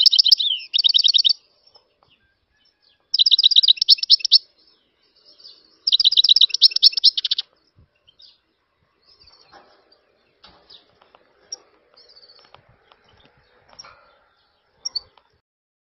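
European goldfinch singing: three bursts of rapid, trilled twittering, each about a second long, then only a few faint scattered chirps.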